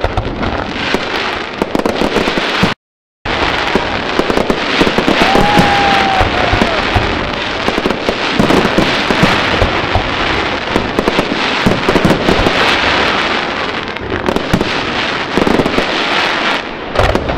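Fireworks display: aerial shells bursting in a dense, continuous stream of bangs and crackling. All sound cuts out for about half a second near three seconds in, and a short whistle rises over the crackling around six seconds in.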